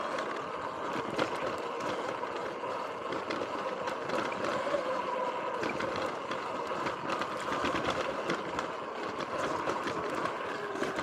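Sur-Ron Light Bee X electric dirt bike under way on a dirt trail: the electric motor's whine, wavering slightly in pitch with speed, over tyre and trail noise, with many small clicks and ticks from the rough ground.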